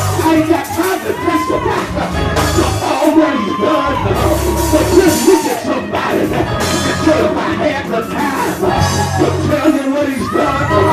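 Live gospel praise music: a man sings lead into a microphone over a drum kit and a pulsing bass line.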